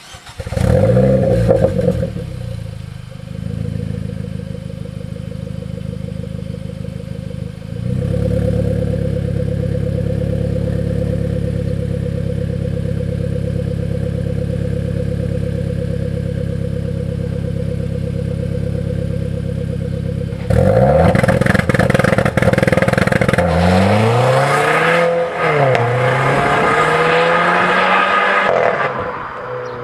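Renault Clio IV RS's 1.6-litre turbocharged four-cylinder, breathing through an Inoxcar aftermarket intermediate pipe and silencer. It starts with a brief flare of revs and settles to a steady idle. About twenty seconds in it pulls away under acceleration, the revs climbing and dropping at each gear change, and fades as the car drives off.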